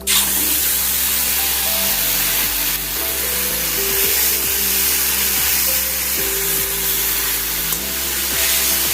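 Hilsa fish pieces coated in mustard paste laid into hot oil in a kadai, starting a loud, steady sizzle the moment they go in. Background music plays underneath.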